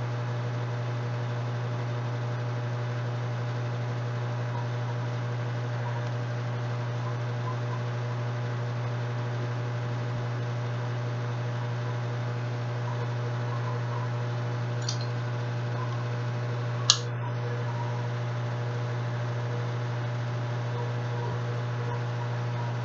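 Steady low electrical hum with faint hiss underneath. Two short clicks come about fifteen and seventeen seconds in, the second one louder.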